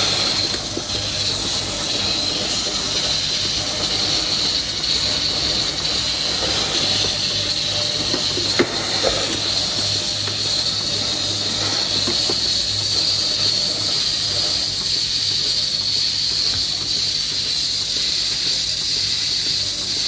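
Robotic milking machine running with its teat cups on a cow's teats: a steady hissing over a low hum, with one sharp click about eight and a half seconds in.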